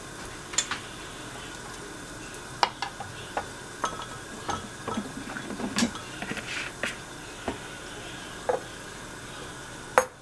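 Kitchen handling sounds: scattered clicks and knocks of utensils and dishes, the loudest near the end, over a steady faint sizzle of vegetables frying in a covered pan.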